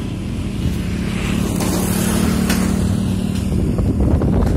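Engine and road noise of a moving vehicle heard from inside it: a steady low rumble with an engine drone that holds from about a second in until past three seconds, growing a little louder near the end.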